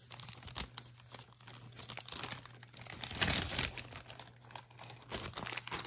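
Plastic packaging crinkling and rustling as a mailer and clear zip bags are handled, in irregular crackles with small clicks, loudest about three seconds in.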